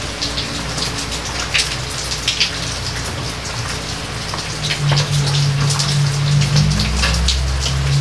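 Steady rain falling, with many separate close drops heard within the hiss. Beneath it a low, held drone runs steadily and grows louder about five seconds in.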